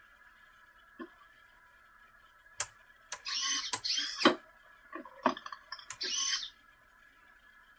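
Remote-control crawler truck's electric motor and gears whining in short bursts as it is driven, with a few sharp clicks between bursts and a faint steady high hum underneath.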